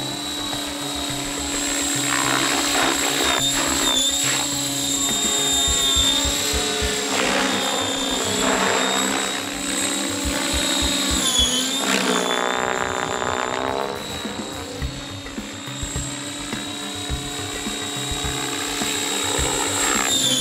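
Large radio-controlled 3D helicopter flying aerobatics: a steady high-pitched whine that dips briefly a few times as the rotor is loaded, with the main rotor blades whooshing in repeated swells.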